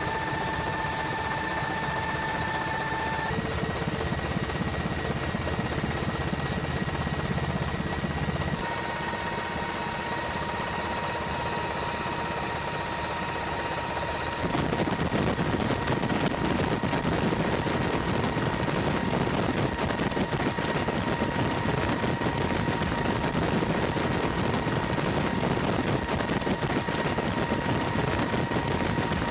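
Helicopter turbine and rotor noise: a steady rushing sound with high, steady whining tones. The pitch of the whine and the low rumble shift abruptly about 3, 9 and 14 seconds in.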